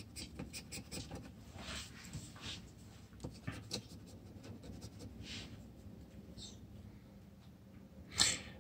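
Scratch-off lottery ticket being scraped with a small metal scraper: a series of faint, short scraping strokes rubbing off the latex coating. A brief louder noise comes near the end.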